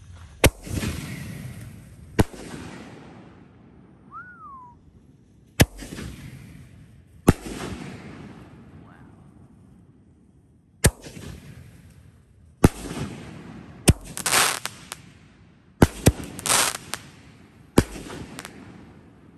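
6-inch canister shells fired in succession from fiberglass mortar tubes: a string of sharp bangs a second or more apart, each trailing off into hiss. Two spells of dense crackling come a little after the middle.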